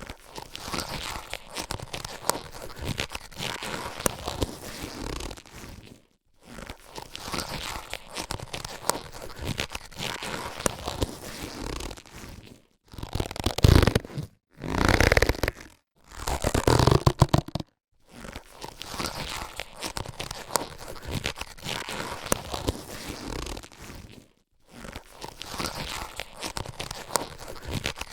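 Latex surgical gloves being handled, rubbed and stretched, giving a dense crackling rubbery rustle. It comes in several takes cut apart by brief silent gaps, with louder, sharper pulls in the middle.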